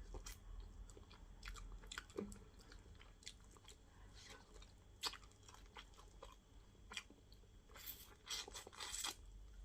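Faint close-up chewing and wet mouth smacks from someone eating plantain fufu with okra fish stew: irregular soft clicks, with a quicker run of them near the end.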